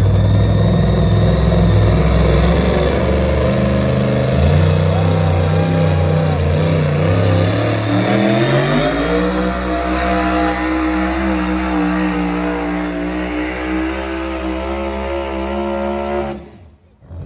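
Engine of a competition pulling vehicle running hard under load as it drags the weight sled down the track. Its pitch climbs about halfway through, then holds high and steady until the sound cuts off abruptly near the end.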